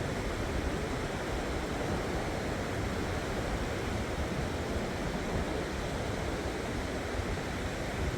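Steady wash of sea surf.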